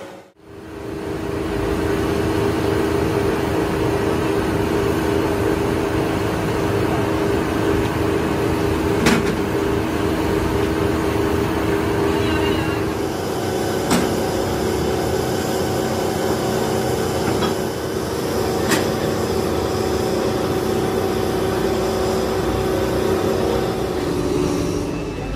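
Steady roar of a foundry cupola furnace and its air blower, a constant hum with a few held tones, while molten iron is tapped into a ladle. A few sharp metal knocks stand out now and then.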